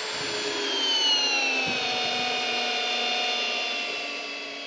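Hilti SF 6H-A22 cordless hammer drill in drill mode on speed 1, running under load as it drives a 6-inch lag screw into a wood log through a socket adapter. The motor's steady whine sinks slowly in pitch over the first couple of seconds as the screw bites deeper, then holds level.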